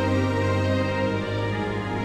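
Slow, gentle background music of held notes over a steady low bass note.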